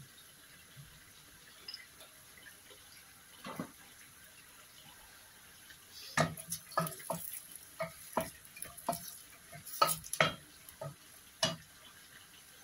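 A wooden spoon stirs sliced onions and oil in a stainless-steel pot. From about halfway through comes an irregular run of knocks and scrapes of the spoon against the pot.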